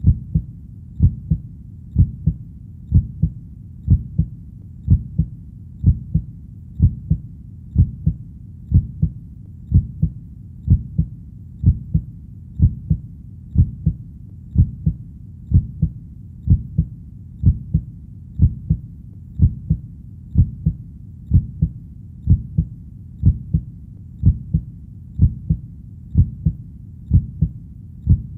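A steady heartbeat: deep double thumps, lub-dub, about once a second (roughly 60 beats a minute), perfectly even throughout.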